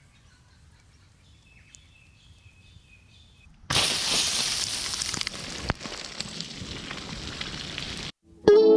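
Faint bird calls, then about four seconds in a sudden loud rush of spraying water as a grommet on a drip irrigation pipe blows out at a riser and a pressurised jet of water and soil shoots up. The grommet has failed to hold the riser under pressure. The spray cuts off abruptly, and guitar music begins near the end.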